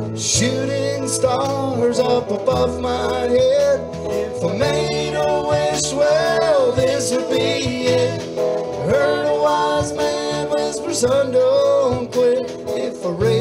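Background music: a country-style song with a singing voice over guitar.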